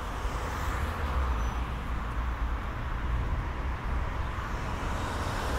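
Steady low rumble with a hiss over it, like road traffic.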